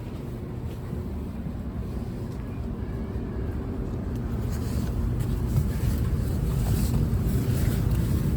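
Shinkansen train running, a steady low rumble that grows louder from about halfway through, with a rising rushing hiss.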